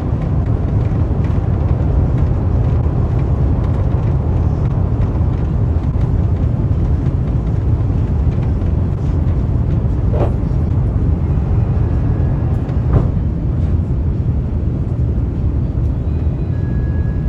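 Airbus A350 cabin noise: a steady low rumble of the Rolls-Royce Trent XWB engines and airflow heard from inside the cabin, with two faint knocks about ten and thirteen seconds in.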